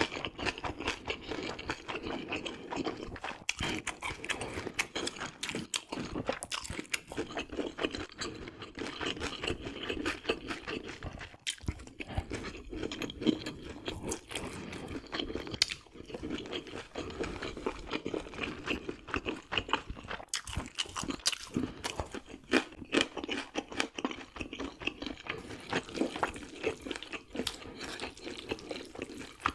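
Close-miked eating sounds of a person chewing mouthfuls of spicy cold noodles and braised meat: continuous chewing with many small sharp mouth clicks.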